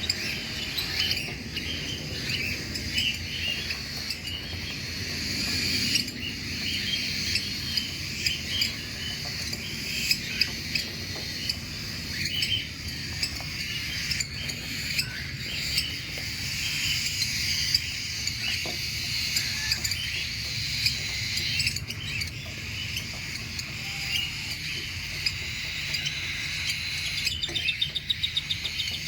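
A roomful of cockatiels chirping and calling over one another, a dense chatter of short high calls with scattered clicks and light knocks mixed in.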